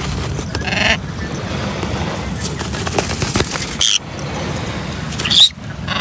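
A small parrot giving short, harsh squawks three times while held in the hand for a claw trim, the loudest near the end: a protest at being restrained.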